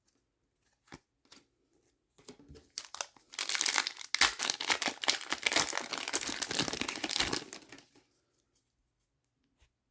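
Hockey card pack wrapper being torn open and crinkled: a dense crackling that starts about two and a half seconds in and stops about eight seconds in, after a few light taps.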